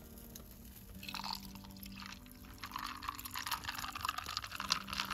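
Green Horoyoi cream soda chuhai poured from a can into a glass, splashing and fizzing, the pour growing stronger in the second half.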